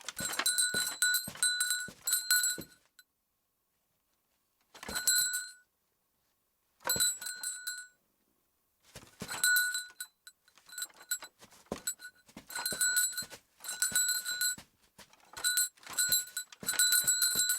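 Foley performance of small bells jingling together with a bamboo basket rattling, shaken in bursts. The bursts are separated by short silences at first and run almost without a break in the second half.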